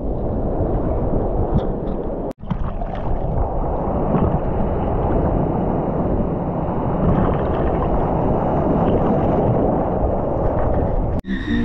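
Ocean surf and water sloshing around a camera held at the waterline, with wind buffeting the microphone: a steady, muffled rush of noise. It breaks off twice into a split second of silence, about two seconds in and near the end.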